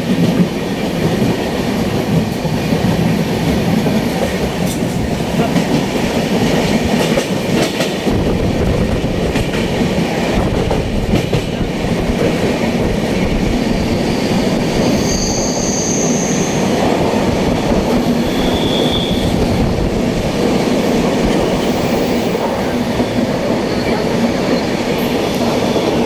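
Passenger train running on the Pune–Mumbai line: a steady, loud rumble and clatter of wheels on rails. A few brief high-pitched squeals come through about two-thirds of the way in.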